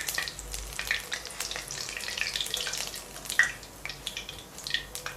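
Small masala vadai deep-frying in hot oil in a kadai: a steady sizzle full of quick crackles and pops, with one louder click about three and a half seconds in.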